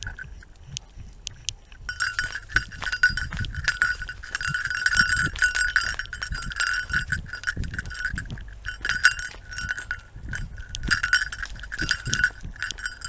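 Metal jingling from the collar or harness of a running Doberman, a ringing tone with many quick clicks that starts about two seconds in and briefly drops out near the end. Under it are low thumps and rumble from the dog's strides jolting the camera strapped to its body.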